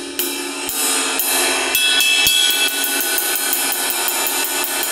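Domene Nova 21-inch ride cymbal struck with a drumstick tip, strokes about half a second apart at first, then a fast even run of about five a second. The ring of the metal, its "ping", carries over a little click of the stick tip.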